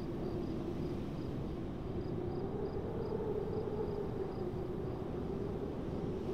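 Steady low rumbling drone with a sustained hum running through it, a tension sound bed for a film standoff. A faint high pulsing chirp repeats about twice a second above it and fades out in the later part.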